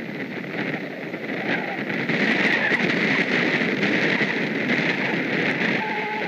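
Great blue heron chicks giving their rapid, clicking begging chatter, which grows louder about two seconds in as an adult feeds them at the nest.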